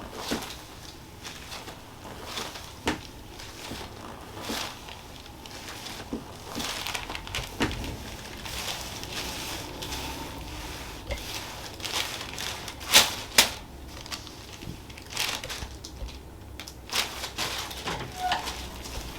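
Two loud sharp cracks in quick succession about 13 seconds in, joint cavitation pops from a chiropractic spinal adjustment where the spine was a little locked up, among scattered small clicks and rustling from handling on the treatment table.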